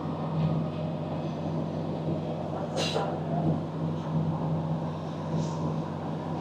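Inside a Class 150 diesel multiple unit on the move: a steady diesel engine drone under the rumble of the wheels on the track. A brief, sharp high-pitched sound stands out about three seconds in.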